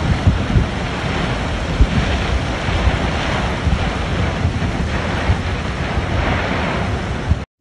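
Heavy wind-driven rain in a violent storm, with strong gusts buffeting the microphone in irregular low rumbles. The sound cuts off abruptly near the end.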